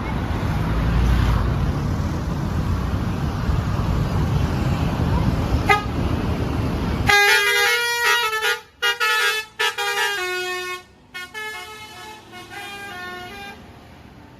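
Bus engine and road noise with a low rumble, then about seven seconds in a Basuri 'telolet' multi-tone bus horn plays a tune of stepped notes, broken by short gaps, for about six seconds before fading.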